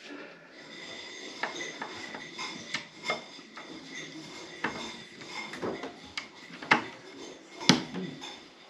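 A series of sharp clicks and light knocks as a hand fits the battery onto a bicycle's electronic rear derailleur. The two loudest clicks come near the end.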